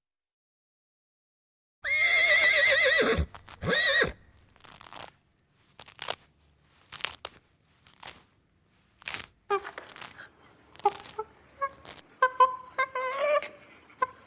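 A horse whinnying: a loud, quavering call that drops in pitch at the end, with a shorter second call just after. Scattered clicks follow, then a run of short calls from an animal near the end.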